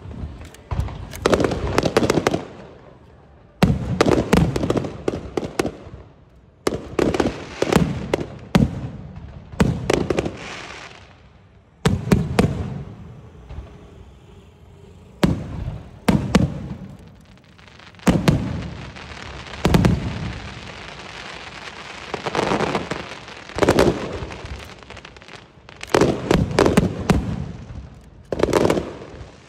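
Aerial fireworks shells bursting in quick clusters of sharp bangs, with stretches of crackling between the volleys.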